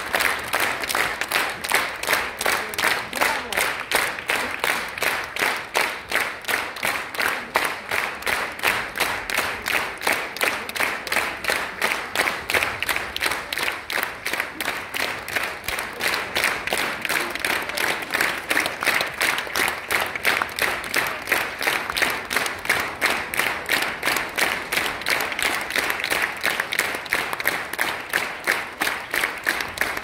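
Theatre audience applauding, the clapping falling into unison with a steady rhythmic beat.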